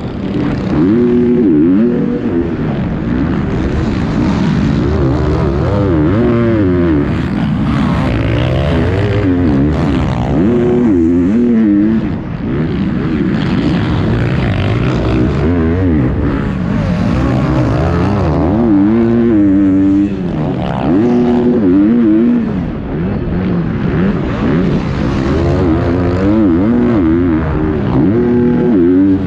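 Motocross bike engine heard from the rider's helmet, revving hard and falling off again many times as it is ridden over jumps and through corners, with other dirt bikes racing close by.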